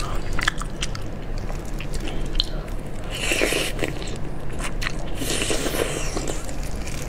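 Close-up eating sounds from a person biting and sucking at a piece of fatty steamed fish in chili sauce: scattered mouth clicks and smacks, with two longer slurping stretches about three and five seconds in.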